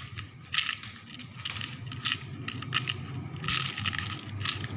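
Small plastic beads clicking and rattling as fingers rummage through them in a plastic compartment box, in uneven clusters of clicks with the busiest patch about three and a half seconds in.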